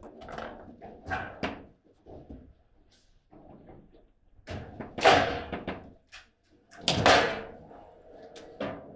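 Foosball table in play: the ball and rods knocking and banging against the table, with two loud bangs about five and seven seconds in.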